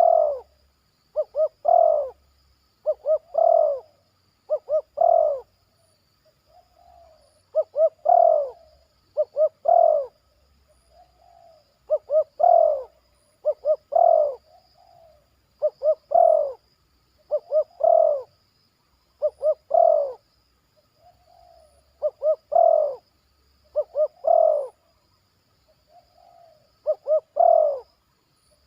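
A young spotted dove (tekukur) cooing over and over, about fourteen phrases. Each phrase is a few quick short notes (the 'batuk' opening) followed by one longer, fuller coo that ends it (the 'poin'). This is the song of a young trained bird that has already learned both parts.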